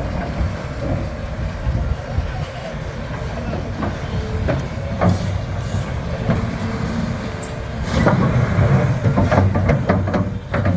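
Volvo EC550E crawler excavator working: a steady heavy diesel rumble with repeated sharp metallic clanks and knocks, getting louder and busier about eight seconds in.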